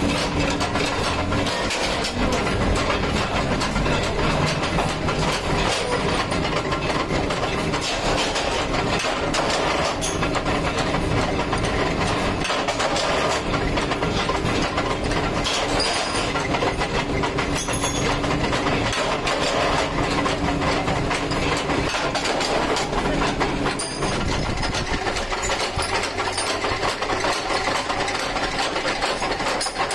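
Flywheel-driven mechanical power press running steadily with a low hum, over a constant clatter of steel hooks being handled.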